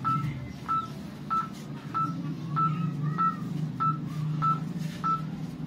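About ten short electronic beeps of one pitch from a phone's flash-number mental-arithmetic drill, evenly spaced at a little over one and a half per second. Each beep marks a new number flashing up to be added. A low steady hum lies underneath.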